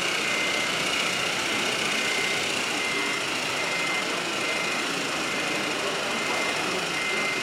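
Radio-controlled model trucks running: a steady mechanical whirring, with a faint high tone pulsing on and off.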